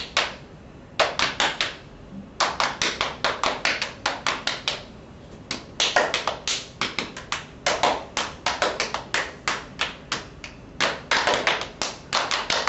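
Hand clapping in quick rhythmic runs of sharp claps, about five a second, broken by short pauses.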